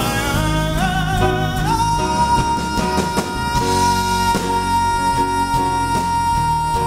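Male singer belting into a microphone over a live band with drums. His voice steps up in pitch twice in the first two seconds, then holds one long, steady high note.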